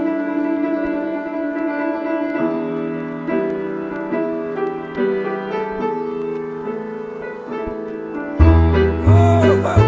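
Background music led by piano: held chords, then a slow line of changing notes. About eight and a half seconds in, a heavy bass beat comes in and the music gets louder.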